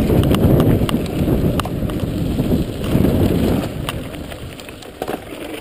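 Trek EX5 mountain bike rolling fast over a dirt trail: a steady tyre rumble with sharp clicks and rattles from the bike over bumps. It dies down over the last two seconds as the bike slows.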